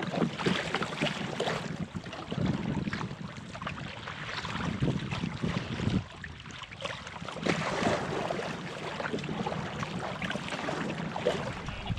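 Canoe paddle strokes splashing and water lapping and slapping against the hulls of two open canoes paddled together nose to nose, in irregular surges.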